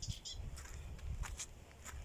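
Short high bird chirps, a few single calls spaced out, over a low uneven rumble.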